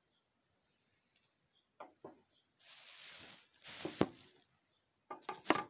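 Breathing through a tracheostomy tube: two breathy hisses of air about a second long each, with a few sharp clicks before, during and after them.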